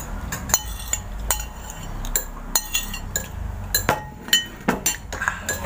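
Spoons clinking against ceramic bowls and plates while eating: a dozen or so sharp, irregular clinks with a short ring.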